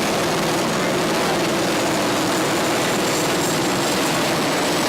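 Helicopter running close by: a steady, loud rush of engine and rotor noise with a faint high whine.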